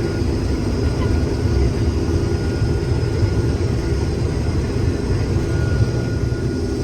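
Combine harvester running steadily while cutting soybeans: a constant low drone of engine and threshing machinery with a faint thin whine held over it.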